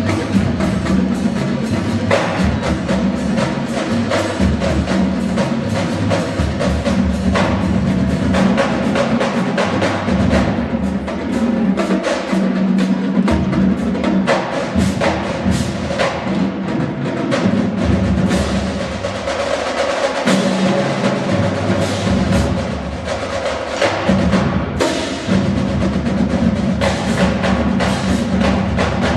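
Marching band music driven by drums and percussion, dense rapid strikes over a sustained low accompaniment.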